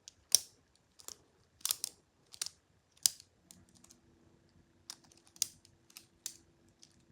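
Lego butterfly knife being flipped open and shut, its plastic handles and blade clacking together in sharp clicks, roughly one every half to three-quarters of a second for the first three seconds, then softer, scattered clicks.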